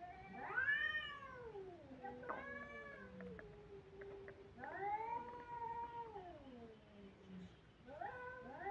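Two domestic cats caterwauling at each other in a face-off: long, continuous, wavering yowls that rise and fall in pitch. The yowls swell louder about half a second in, again around five seconds, and near the end.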